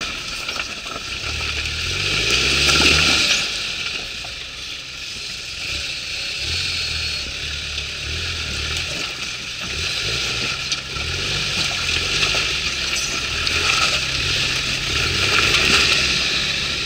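Lifted Toyota Hilux pickup's engine working at low revs while crawling over rocks, its note rising and falling as the throttle is worked. A rushing hiss swells about three seconds in and again near the end.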